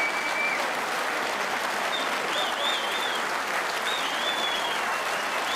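Audience applauding steadily: a sustained ovation for a completed maximum break.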